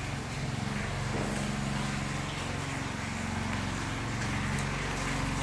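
An engine running steadily at a low, slightly wavering pitch, with its speed drifting up and down a little.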